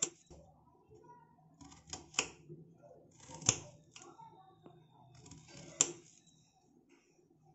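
Kitchen knife slicing a carrot into thin rounds directly on a stone countertop: a short crunch as the blade goes through the carrot, then a sharp tap of the blade on the stone. Four cuts, one every one to two seconds.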